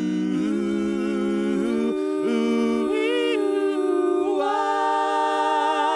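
Three-part a cappella vocal harmony with no instruments, holding the long final chord of a song with vibrato; the chord shifts a few times and swells near the end.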